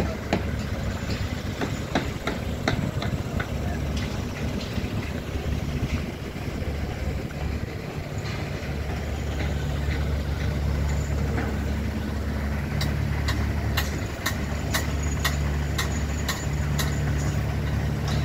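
A large engine idling with a steady low hum. In the last few seconds comes a quick run of sharp clicks or knocks, about two a second.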